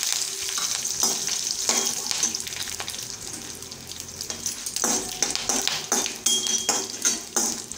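Red chillies, dal, spices and curry leaves sizzling in a little hot oil in a stainless steel kadai. A slotted steel turner scrapes and clinks against the pan as they are stirred.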